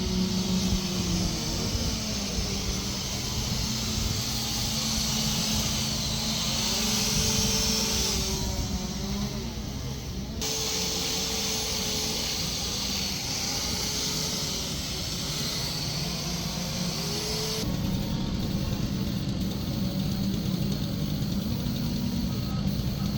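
Two-stroke chainsaw engines running and revving, their pitch rising and falling as the saws cut, with the sound changing abruptly twice.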